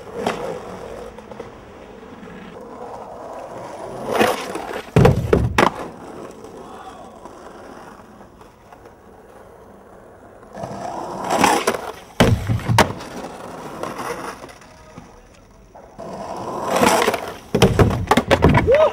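Skateboard runs, three times: polyurethane wheels roll up over pavement, and each run ends in sharp clacks and bangs as the board pops and strikes the obstacle or the ground.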